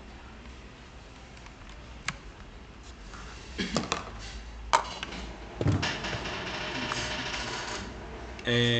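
Handling noise: scattered clicks and knocks, then a stretch of rustling, and near the end a loud steady low-pitched tone lasting about a second.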